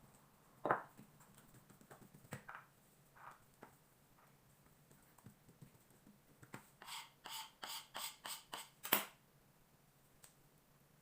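Scattered light taps and knocks, then a quick even run of about ten sharp taps, roughly four a second, a little past halfway, the last one loudest.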